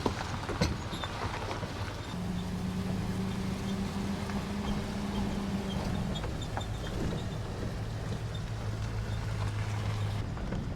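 Pickup truck carrying a truck camper driving over a rough dirt road: a steady engine hum that steps up in pitch about two seconds in and drops back later, with scattered knocks and rattles as the suspension works over the bumps.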